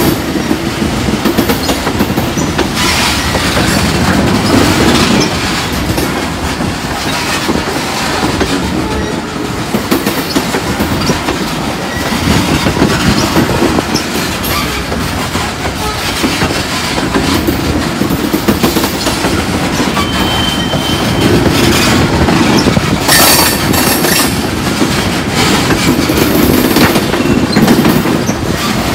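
Loaded freight cars rolling slowly past: a steady rumble of steel wheels on rail that swells every few seconds as each car goes by. A brief wheel squeal comes about twenty seconds in, with a sharp clank a few seconds later.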